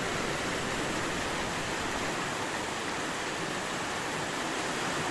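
Steady rush of fast-flowing muddy floodwater, an even hiss with no breaks.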